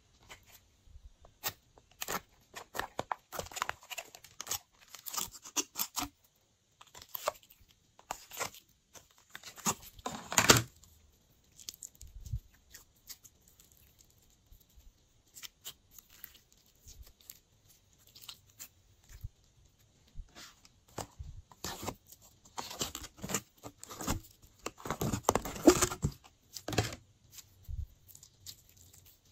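Glossy slime being stretched, folded and squeezed by hand: sticky crackles, pops and squelches in clusters, with quieter gaps between. The loudest pops come about ten seconds in and again around twenty-five seconds.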